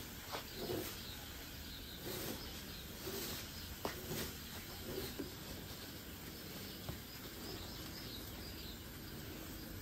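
Faint outdoor ambience with birds chirping in the background, and a few light clicks and scrapes from raking the lawn.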